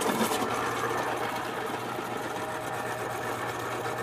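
Electric pencil sharpener running steadily, its motor humming as a pencil is pushed in and ground to a point.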